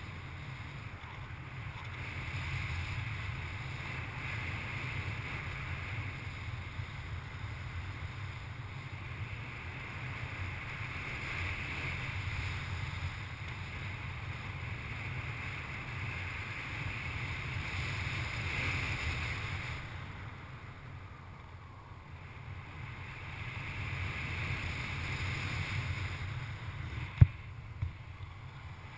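Steady rush of airflow over an action camera's microphone in paraglider flight. It eases for a few seconds about two-thirds of the way through. A single sharp click comes near the end.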